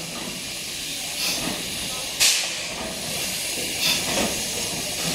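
Steam locomotive moving off slowly, with a steady hiss of steam and a few sharp exhaust chuffs at uneven intervals, the loudest a little over two seconds in.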